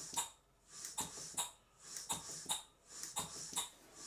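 Stuart 5A model steam engine running slowly on very low-pressure compressed air, its exhaust puffing about twice a second; the air pressure is too low for it to run well.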